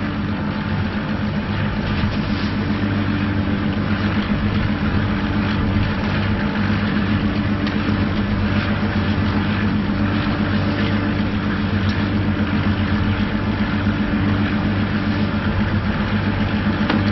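An engine running steadily with a fast throb, over a broad hiss.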